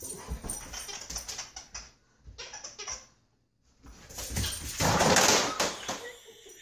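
A large dog jumping and scrambling on a hard floor: scattered thumps and scuffling. About five seconds in comes a louder, noisy rushing scuffle lasting around a second.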